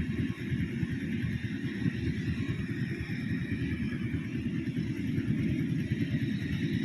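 Rice combine harvester running steadily, a continuous deep engine rumble with a fainter, higher, even whir from the machinery above it.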